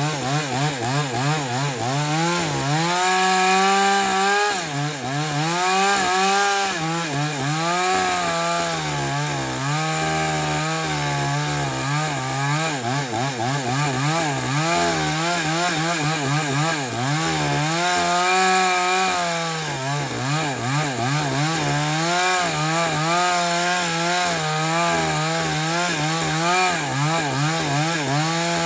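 JCK chainsaw with a 22-inch bar, its two-stroke engine running at high speed while cutting wood. The engine pitch keeps dipping and recovering as the chain bogs under load and frees up again.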